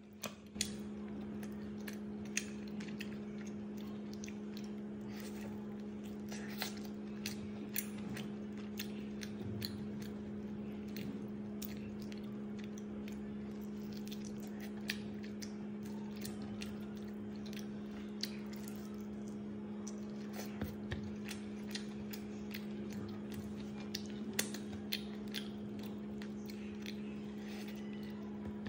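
Close-up chewing and biting of fried chicken, with many small wet, smacking clicks, over a steady low hum.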